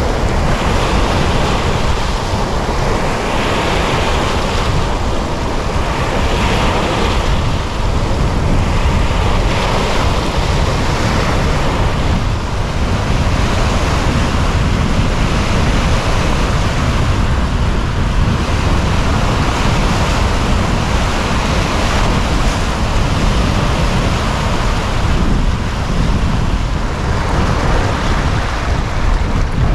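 Wind-driven lake waves breaking and washing over a rocky shore, surging every few seconds, with wind rumbling on the microphone.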